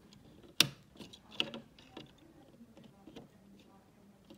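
Needle-nose pliers clicking against the wires and plastic terminal block of a thermostat wall plate: one sharp click about half a second in, a smaller one a second later, then a few faint ticks.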